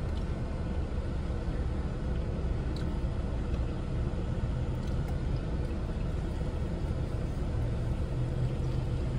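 A car's air conditioning running, a steady low rumble and whir.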